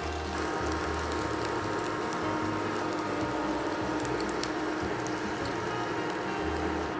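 Slices of chicken luncheon meat pan-frying in a little oil: a steady sizzle with many fine crackles.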